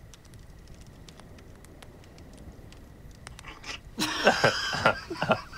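Faint scattered ticks, then about four seconds in a man breaks into loud, short bursts of laughter.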